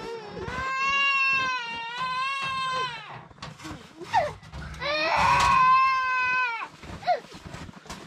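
A baby crying: two long wails, the second, about five seconds in, the louder, with short rising squeaks between and after.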